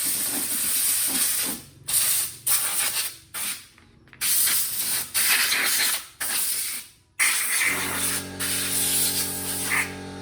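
Compressed-air blow gun blasting in repeated hissing bursts of about half a second to two seconds each, with short breaks between them. A steady motor hum starts about eight seconds in and runs on under the last burst.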